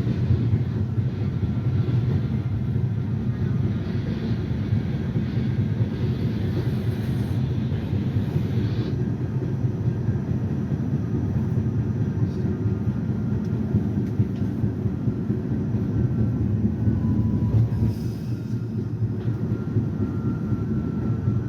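R68A subway car running between stations: a steady low rumble of wheels on the rails, with the faint steady hum of the traction motors above it.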